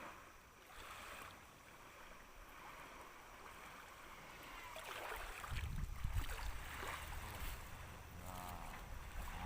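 Faint outdoor water and wind noise, with a strong, uneven low rumble coming in about halfway through.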